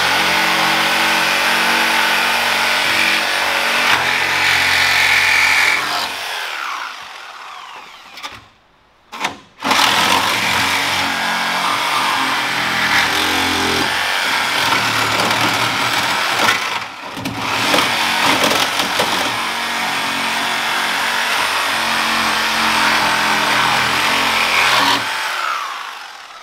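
Reciprocating saw (Sawzall) cutting through the steel shock tower and inner fender of a car's front end. It runs almost continuously, with a short stop about eight seconds in and another brief break near seventeen seconds, then winds down near the end.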